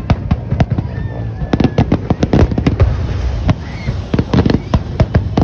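Fireworks going off in a rapid barrage: sharp bangs and crackles, several a second, as aerial bursts explode overhead.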